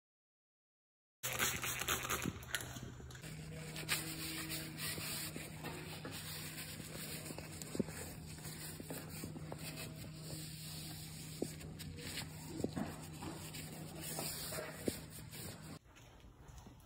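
Cloth rubbing over a window sill under a gloved hand, with scattered light knocks over a steady low hum. It starts about a second in and drops quieter near the end.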